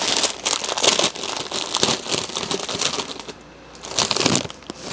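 Packaging crinkling and rustling as a newly delivered costume suit is unpacked and handled, with a brief lull a little past the middle.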